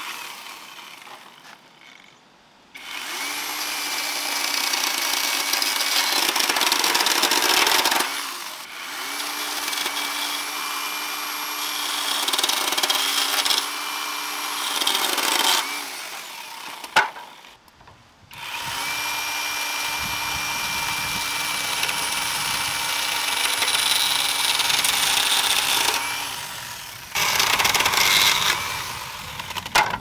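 Small Lapus handheld chainsaw cutting through green bamboo poles, running in four bursts of several seconds each with short pauses between cuts. There is a sharp knock between the second and third bursts.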